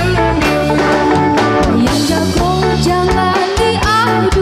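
A band playing an upbeat song on electric guitar and drum kit, with a woman's singing voice coming in near the end.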